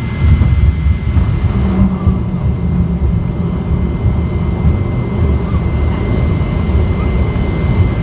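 DHC-3 Turbine Otter floatplane's turboprop engine and propeller running as it taxis on the water: a steady high whine over a heavy, uneven low rumble.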